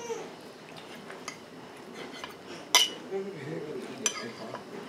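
Metal fork clinking and scraping against a dinner plate while food is picked up: several sharp clinks, the loudest near the middle.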